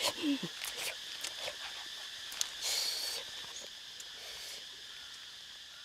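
A white domestic goose being handled on a bed of leaves: rustling and small clicks, a short falling call just after the start, and a brief hiss about three seconds in, over a steady high insect buzz.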